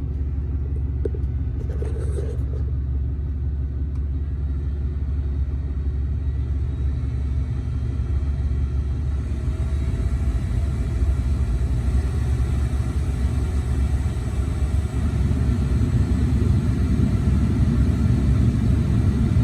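Dodge Ram 2500's 6.7-litre Cummins inline-six turbo diesel idling steadily, with the newly installed HVAC blower motor running on auto. About halfway in, a faint tone slowly rises in pitch and the sound grows a little louder.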